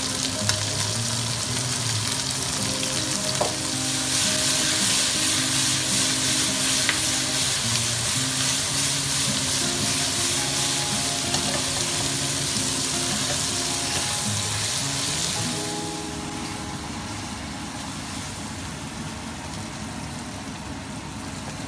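Green beans and pork slices sizzling as they are stir-fried in a nonstick wok and turned with a spatula. The sizzle grows louder about four seconds in and falls away a few seconds before the end.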